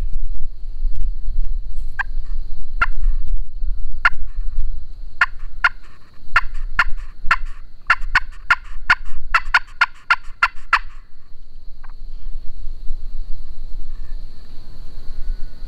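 Pot-style friction turkey call worked with a wooden striker: three spaced yelps, then a quick run of about fourteen yelps from about five to eleven seconds in, calling to a turkey.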